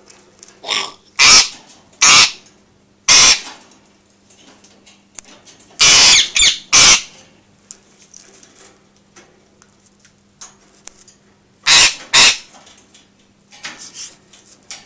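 Indian ringneck parakeet screaming in anger, in loud, harsh, short screeches. There are three a second or so apart early on, a quick cluster of three about six seconds in, and a pair near twelve seconds. It is an agitated bird throwing a fit.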